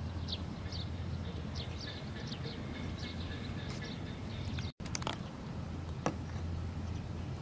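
Outdoor ambience: a steady low hum with short, high, faint chirps repeating irregularly for the first few seconds. The sound drops out briefly at a cut a little past halfway, then a few faint clicks follow.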